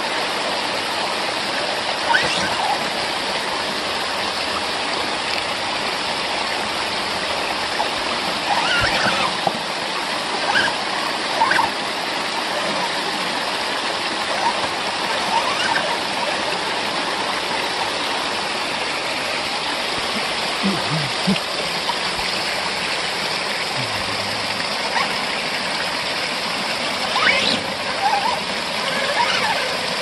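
Small waterfall rushing and splashing over rocks in a steady rush, with a few brief high squeaks now and then.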